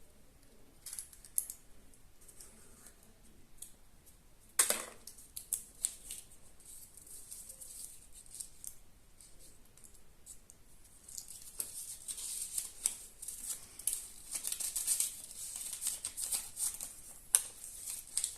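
Foil wrapper of a Kinder Surprise egg being handled: scattered crinkles, one sharp snap about four and a half seconds in, then steady crinkling and rustling through the second half.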